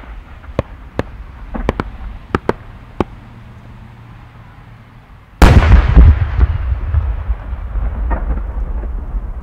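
A ten-inch (No. 10) triple-core chrysanthemum firework shell. About seven sharp pops come from the small bursts on its rising tail as it climbs. About five seconds in, the main shell bursts with one heavy boom, the loudest sound, which rolls on in a long fading rumble with a few faint crackles.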